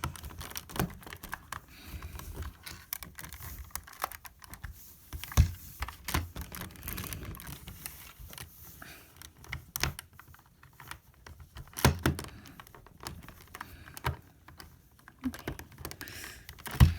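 LEGO bricks clicking and knocking as hands handle and fit parts of a LEGO puzzle box: irregular small plastic clicks, with a few louder knocks about five, twelve and seventeen seconds in.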